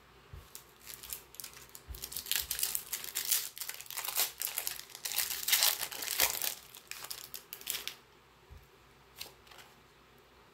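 Foil wrapper of a Pokémon TCG Fusion Strike booster pack crinkling and tearing as it is ripped open by hand, the crackling stopping about eight seconds in, followed by a few faint clicks.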